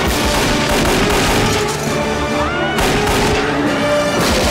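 Loud orchestral action film score with pistol gunfire and crashes of a gunfight mixed under it, one sharp impact about three seconds in.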